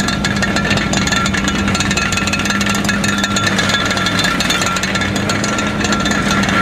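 Demolition excavator at work: its engine running steadily under continuous clattering and crunching of torn metal cladding and debris.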